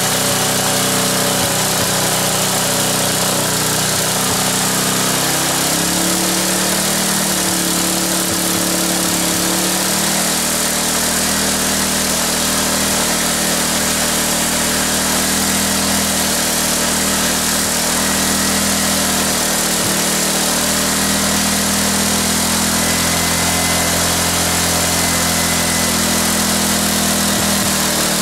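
Tecumseh engine of a Wolf Garten Cart Tec ride-on cart running steadily, its speed shifting about six seconds in and again about ten seconds in as the throttle is worked by hand. Its centrifugal governor is out of action, which the owner puts down to worn governor gears, so without an added throttle cable holding it back it runs at full throttle.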